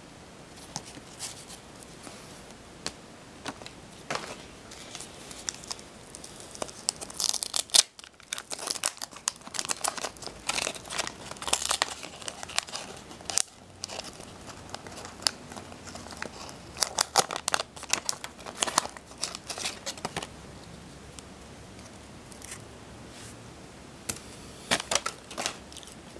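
Wax-paper trading card pack wrapper being torn open and crumpled by hand, crackling in irregular bursts, with the loudest crack about a third of the way in and another flurry near the end.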